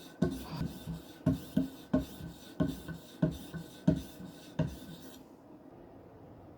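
Knife edge being drawn along a hard polymer strop charged with 1-micron abrasive emulsion: a run of quick rasping strokes, about two a second, that stop about five seconds in.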